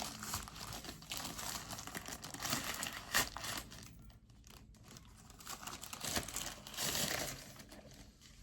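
Crinkling and rustling of a thin plastic dust cover being handled and pulled off a keyboard. The crackle comes in irregular bursts, sharpest about three seconds in, eases off, then swells again near the end.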